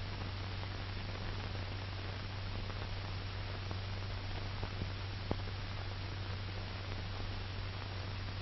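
Steady hiss and low hum of an old film soundtrack, with a few faint crackles about halfway through.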